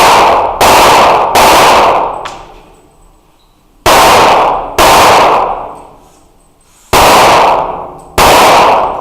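Pistol shots fired six times in three pairs, each shot loud and echoing with a long reverberant tail in an indoor range.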